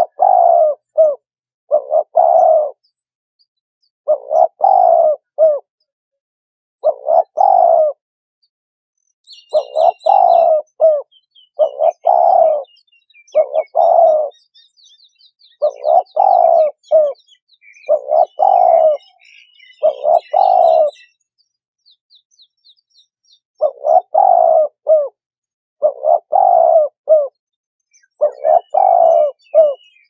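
Turtle dove cooing over and over in short phrases of two or three notes, with brief pauses between phrases. A smaller bird chirps faintly in the background through the middle stretch.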